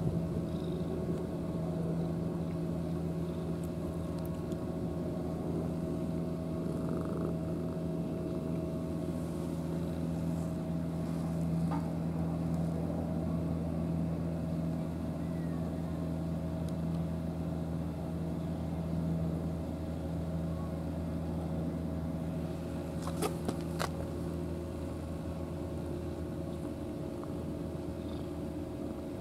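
A cat purring steadily close up, over a continuous low engine-like drone. A few sharp clicks come near the end.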